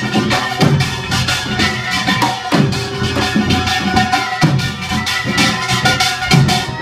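Samulnori percussion ensemble playing a fast, dense rhythm: kkwaenggwari small gongs clattering over janggu and buk drum beats, with metal gongs ringing on between strokes.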